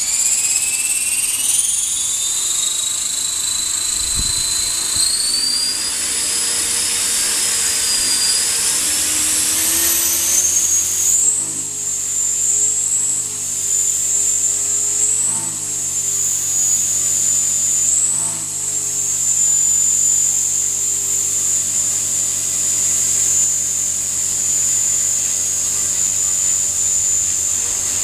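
Small RC helicopter's motor and rotor spooling up with a rising whine over about ten seconds, then running at a steady high whine, with a few brief dips and rises in pitch.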